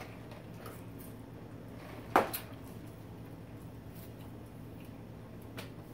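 Quiet eating and drinking sounds at a table: faint small clicks over a steady low hum, with one sharp knock about two seconds in, followed quickly by a softer one, and a small click near the end.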